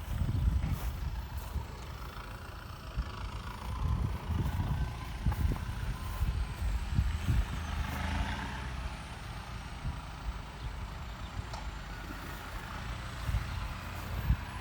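Vehicle engines running, an uneven low rumble that surges and fades.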